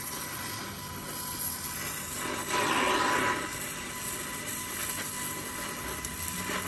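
Gas torch flame hissing steadily as it is played on the car's body panel seam, louder for about a second near the middle.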